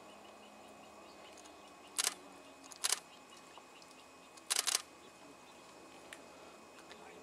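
Short, sharp clicks over faint steady background noise: one about two seconds in, another about a second later, and a quick double click about four and a half seconds in.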